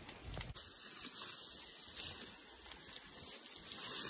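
Faint rustling and scattered light clicks of ferns and undergrowth being cut and pulled with a sickle, over a steady high hiss.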